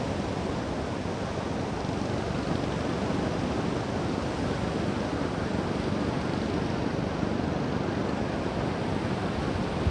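Sea surf breaking on a beach mixed with wind blowing across the microphone, a steady, even noise with no distinct events.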